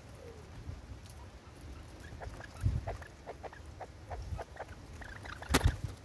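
Spurfowl feeding at a seed pile on a wooden stump: a run of short, soft notes, about a dozen over three seconds, then a loud sharp thump near the end as a bird lands on the stump.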